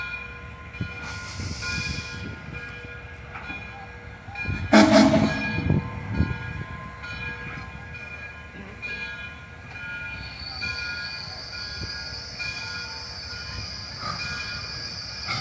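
Frisco 2-10-0 steam locomotive No. 1630 working away slowly, with uneven low exhaust chuffs and one loud short burst about five seconds in. A steady steam hiss from the cylinder cocks joins from about ten seconds in.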